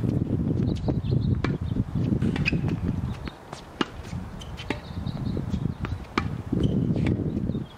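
Tennis balls volleyed back and forth: sharp pops of ball on racket strings, roughly one a second, over a low rumble.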